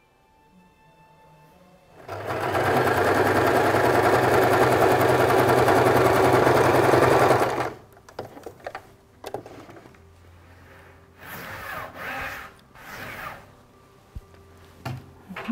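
Electric domestic sewing machine stitching a seam. It starts about two seconds in and runs steadily for about five and a half seconds before stopping. Afterwards there is quieter rustling as the fabric strips are handled.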